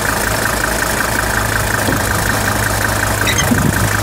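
1979 Mercedes-Benz 300SD's five-cylinder turbo diesel engine idling, with a steady, evenly beating diesel clatter over a low hum.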